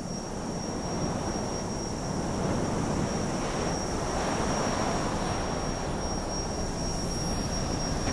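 Jet airliner engines passing: a steady rushing noise, heaviest in the low end, with a thin high whine over it, growing louder over the first couple of seconds and then holding.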